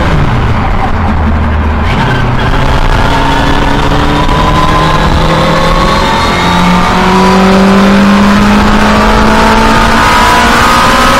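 Race car engine heard from inside the cockpit, dropping in pitch near the start as the driver lifts off, then rising slowly and steadily as the car accelerates in fourth gear.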